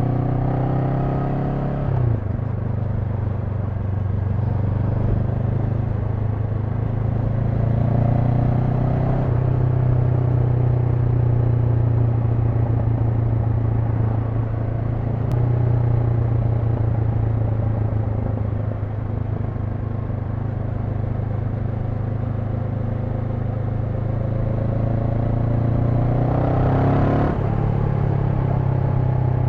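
Honda NX500's parallel-twin engine under way, climbing in pitch as it pulls, with sudden drops in pitch at upshifts about 2 seconds in, about 9 seconds in and near the end, and steady cruising in between.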